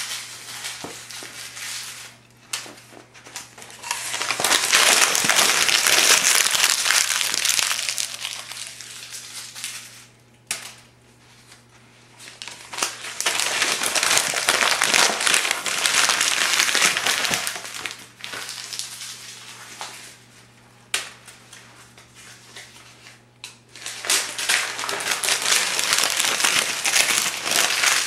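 Phone book pages being crumpled into balls by hand: three long bouts of loud paper crinkling, with a few sharp taps in the quieter gaps between them.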